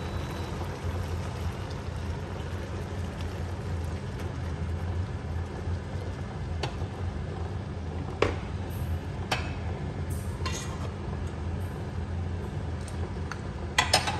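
Prawns sizzling and simmering in a nonstick pan on an induction cooktop over a steady low hum, with a few scattered clinks and knocks and a quick cluster of louder clinks near the end.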